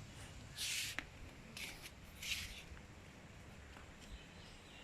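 Three short hissing scrapes and a sharp click about a second in, over faint low background noise.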